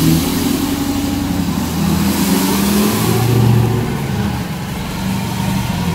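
Mega truck's engine running and revving as it pulls away, the revs climbing about two seconds in and dropping back after about three and a half seconds.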